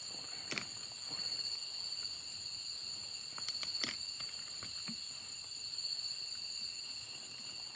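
Night insects chirring steadily in several high, even tones, with a few sharp clicks and knocks from bottles being handled, about half a second in and again just before four seconds.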